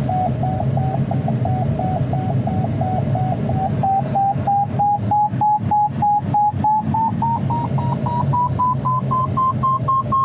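Glider variometer beeping in a climb: short beeps about three to four a second, rising in pitch and quickening through the second half as the climb strengthens while circling in a thermal. Under it, the steady rush of airflow around the ASK 21's cockpit.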